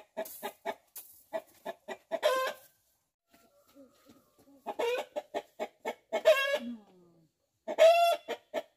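Domestic hen cackling: three runs of short clucks, each ending in a longer drawn-out call. This is the cackle typical of a hen around laying.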